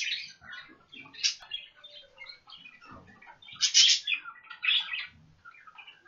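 Budgerigars chattering: a steady run of quick, short chirps and warbles from several birds, with a few louder calls a little past the middle.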